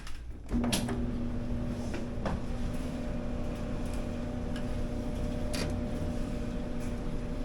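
GE dryer started and running: a steady motor-and-drum hum with a low tone, starting with a click about half a second in, with a few light clicks and knocks.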